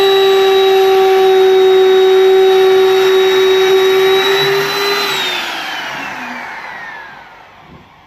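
DCA electric plunge router motor running at full speed with a steady high whine, then switched off about five seconds in, its pitch falling as it winds down to a stop.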